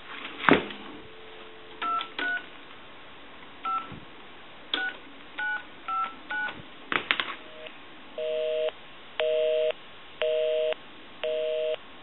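Touch-tone keypad of a Western Electric single-slot payphone dialing seven digits, each a short two-tone beep, with a click about half a second in. The line then returns a busy signal, a low two-tone buzz pulsing on and off about once a second, because the number called is busy.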